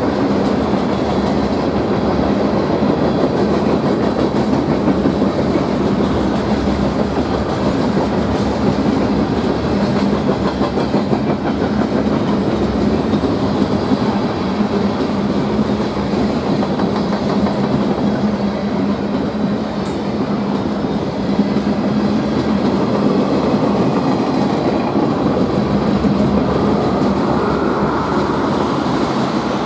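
Railcars of a manifest freight train (covered hoppers and boxcars) rolling past, a steady rumble of steel wheels on the rails.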